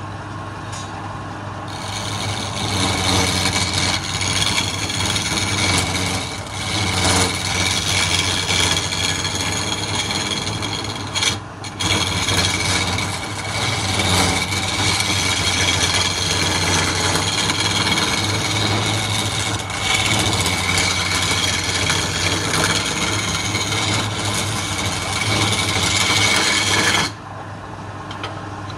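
Wood lathe running with a steady hum while a hand-held turning chisel cuts the spinning wooden spindle, giving a continuous scraping hiss as shavings come off. The cut starts about two seconds in, eases off briefly twice, and stops shortly before the end, leaving only the lathe's hum.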